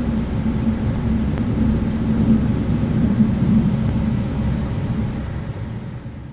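Passenger train running, a steady low rumble heard from inside the carriage, fading out near the end.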